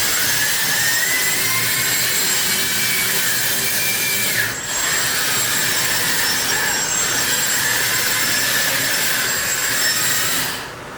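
Hydraulic pump and crawler track drive of a 1/14-scale RC hydraulic excavator running as the machine travels: a steady hissing whine, with a brief break about four and a half seconds in, stopping just before the end.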